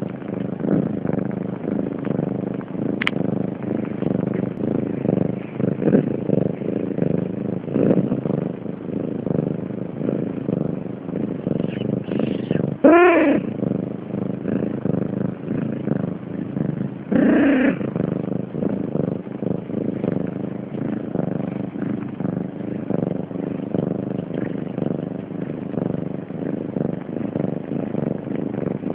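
Cat purring, a steady rumble throughout, with a kitten mewing twice: a short gliding mew about halfway through and a weaker one a few seconds later.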